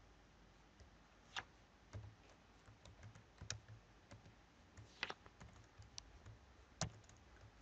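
Computer keyboard being typed on: faint, irregular key clicks with a few louder keystrokes scattered among them.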